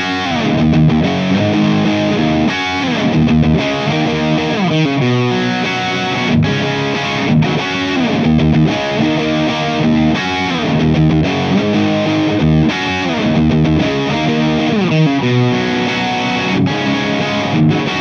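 Distorted electric guitar played through a small EL84 valve amp head, a riff with sliding notes.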